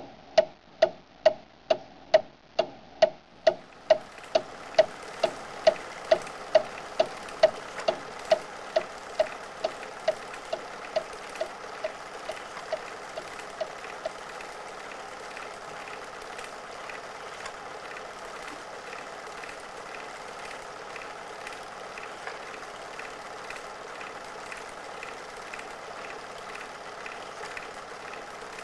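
Sharp ringing ticks, about two and a half a second, like a clock, growing fainter until they die away about halfway through. Under them a steady hiss comes in after about four seconds, with faint regular ticking in it.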